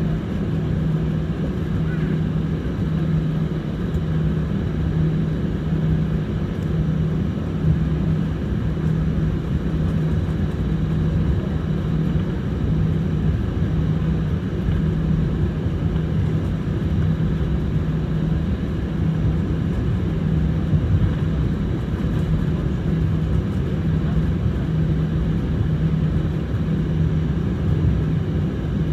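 Steady drone of an Airbus A320's engines and airframe heard from inside the cabin while the plane taxis, with a low steady hum and no change in power.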